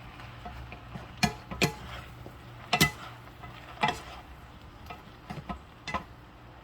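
A cooking utensil clinking against cookware about seven times at irregular intervals, stirring or serving stir-fried eggplant, over a faint low steady hum.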